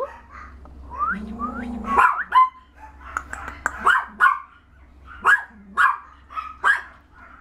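Six-week-old puppy yapping in a string of short, high-pitched barks, each rising in pitch, about ten in all.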